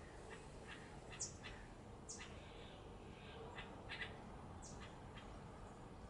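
Faint birds calling: scattered short chirping notes, with a few sharp, very brief high chirps about a second apart near the start and one more past the middle.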